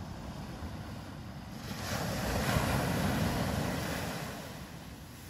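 Surf on a sand beach: a wave breaks and rushes up the shore, swelling about two seconds in and fading away near the end.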